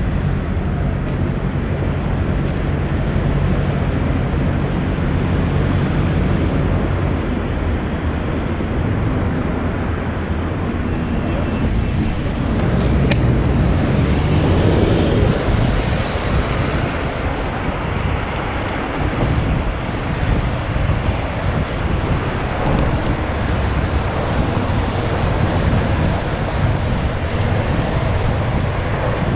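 Steady urban traffic and engine noise with wind buffeting the microphone, recorded on a GoPro Hero5's built-in microphone; a low engine hum stands out in the first several seconds and again around the middle.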